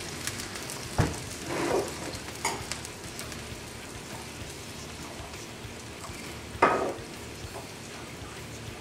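Pot of littleneck clams sizzling on high heat in olive oil, garlic and white wine. A sharp knock sounds about a second in, and a louder knock about six and a half seconds in.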